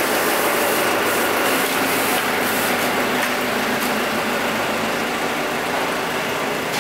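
Yuchai diesel engine of a 200 kW generator set running steadily, an even drone with no change in speed.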